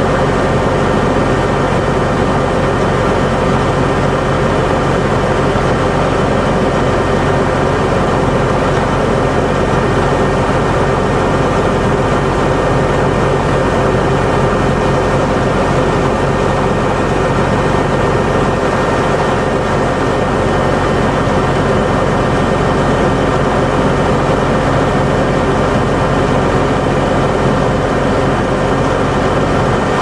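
Diesel engine of a heavy crawler tractor running steadily under load while pulling a multi-furrow plough.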